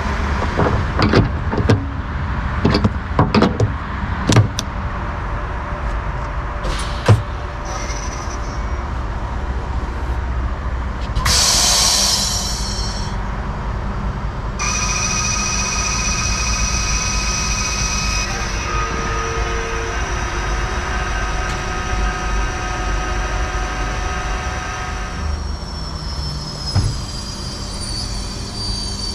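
Hydrogen dispenser nozzle being handled and locked onto a Toyota Mirai's fuel receptacle, with several sharp clicks and knocks. A short loud hiss follows about eleven seconds in, then a steady high whine and hiss as hydrogen gas is pressurised into the car's 700-bar tank.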